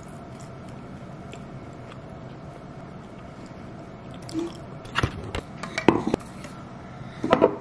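Quiet eating and drinking sounds at a table: faint clicks and chewing as a date is pulled apart and eaten, then a few louder knocks and clinks from about four and a half seconds in, over a steady low hum.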